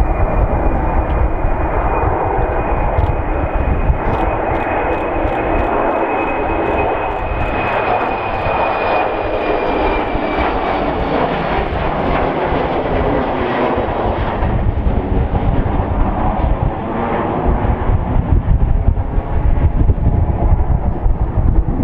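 Embraer E190 airliner's twin GE CF34 turbofan engines at takeoff power: a steady jet roar with a high fan whine that drops slightly in pitch about halfway through as the aircraft passes and climbs away. A deep rumble grows louder in the last few seconds.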